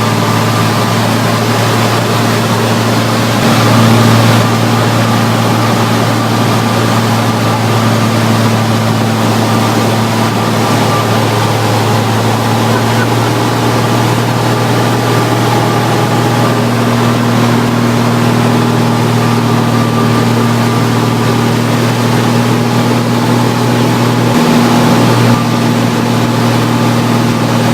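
Cessna L-19 Bird Dog's six-cylinder Continental O-470 engine and propeller droning steadily, heard from inside the cockpit, with a brief louder rush about four seconds in.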